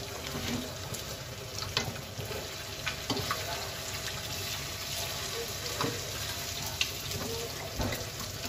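Steady hissing noise with a few light clinks of a steel spoon against a steel bowl as green chutney is spooned out.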